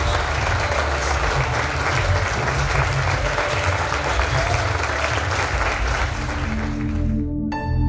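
A congregation applauding, a steady clatter of many hands. About seven seconds in the clapping dies away and soft instrumental music begins.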